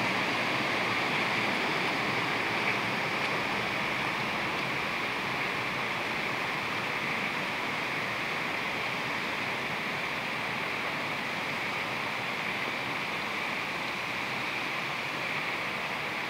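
Small woodland stream rushing steadily over stones, a constant wash of water that eases slightly as it goes on.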